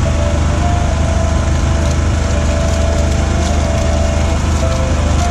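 Steady low mechanical hum, loud and unbroken, with a haze of street noise over it.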